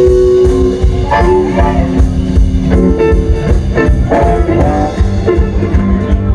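Live electric blues band playing an instrumental break: a steady drum and bass groove under a lead line of held and bending notes.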